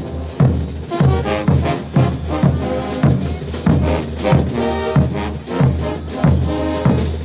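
Bolivian brass band playing a morenada: brass chords over a steady bass-drum beat about twice a second.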